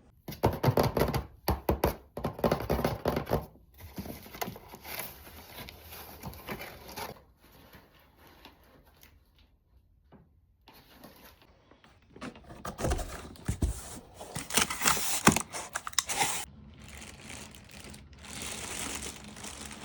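A shipping box and its packaging being opened by hand: tape and paper tearing, cardboard scraping, and plastic crinkling, with a few thunks. The noise comes in bursts separated by quieter pauses.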